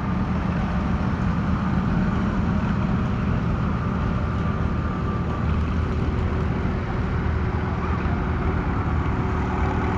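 Antique tractor engine running steadily.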